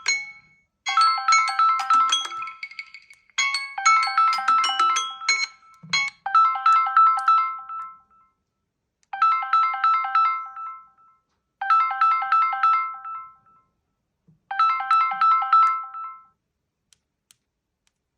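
Smartphone incoming-call ringtones: a short melody plays twice, then about six seconds in a different ringtone takes over, a quick run of high notes repeated four times with short pauses between.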